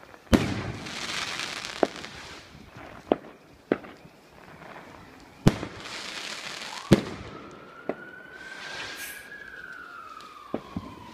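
Fireworks rockets bursting with about eight sharp bangs, several followed by a crackling hiss of falling sparks. In the second half a siren's wail slowly rises and then falls.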